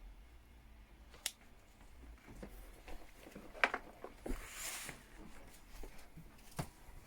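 Faint handling noise of headphones and their cable being picked up and plugged in: a scatter of small clicks and taps, with a brief rustle about four seconds in.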